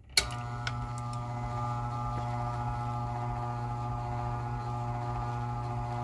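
Old LiftMaster 1000-series V-belt-drive garage door opener switched on with a sharp click, then running steadily: its Westinghouse AC motor gives a steady hum as it drives the belt and the threaded limit-cam shaft.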